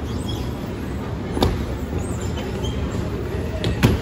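Steady low rumble of a moving walkway running, with two sharp knocks on its metal, the louder one near the end as a child's boot lands on the landing plate.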